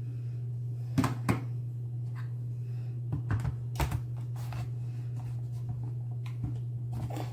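Plastic clicks and knocks as a small plug-in wall-outlet space heater is handled and pushed against the outlet: a pair about a second in and a cluster between three and four seconds in, over a steady low hum.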